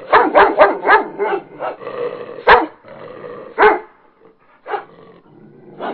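Dog barking angrily: a rapid run of barks at first, then single loud barks spaced about a second apart, growing fainter after about four seconds.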